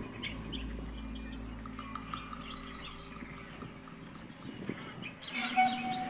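Small birds chirping and calling, with short high chirps scattered through, over a low steady hum. About five seconds in, a louder sound sets in as music begins.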